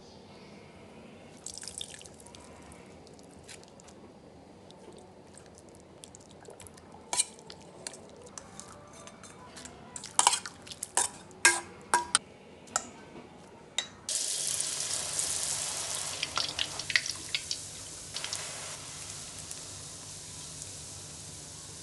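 Metal spoon clinking and scraping against a stainless steel mixing bowl as a spicy dressing is stirred, with the sharpest clinks about ten to thirteen seconds in. About fourteen seconds in, enoki mushrooms start sizzling in hot oil in a wok: a steady hiss that slowly fades, with a few clicks of metal tongs.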